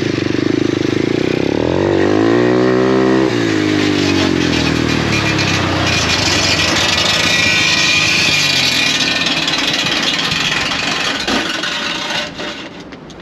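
Small petrol engine revving. Its pitch climbs from about a second and a half in and falls away by about four seconds, then it runs on under a loud, even rushing hiss that fades near the end.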